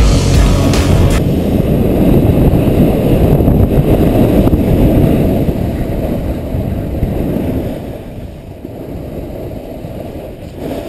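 Music cuts off about a second in. Loud, low wind rumble buffeting the microphone follows, as when skiing fast down a race course, and eases off over the last few seconds.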